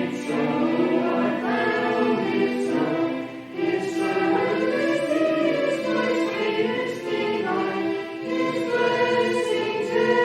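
A congregation singing a hymn together in sustained, many-voiced phrases, with a brief breath between phrases about three and a half seconds in.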